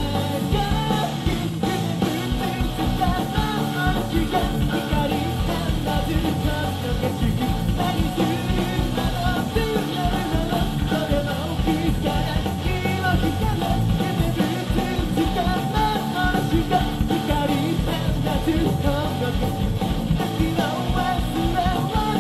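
Rock band playing live: a male vocalist singing over electric guitars and drums, continuous and loud.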